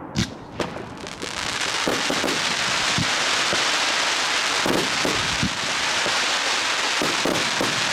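Consumer firework cakes firing. Two sharp reports come near the start, then a dense, continuous crackling hiss begins with muffled launch thumps every second or so.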